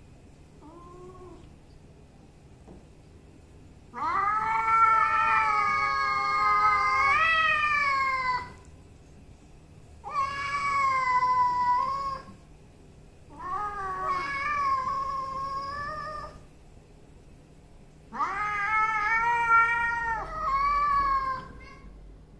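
A domestic cat yowling: a faint short meow about a second in, then four long drawn-out yowls of two to four seconds each with short pauses between, the pitch wavering and sliding, the threat yowl of a cat squaring up to another before a fight.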